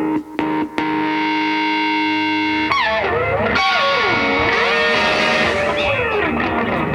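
Background music: a distorted electric guitar plays a few short chord stabs, holds a chord, then plays sliding, bending notes.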